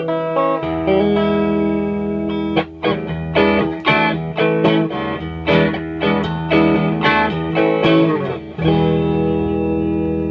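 Electric guitar played clean through a 1930s Gibson EH vacuum-tube guitar amplifier freshly fitted with new filter capacitors. Held chords, then a run of picked notes and strums, and near the end a chord left to ring.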